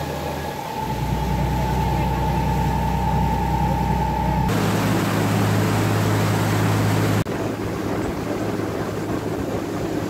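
Tour boat's engine running, heard from on board: a steady drone with a high thin whine. The sound changes abruptly about four and a half seconds in to a heavier hum, and about seven seconds in to wind on the microphone and water rushing in the wake.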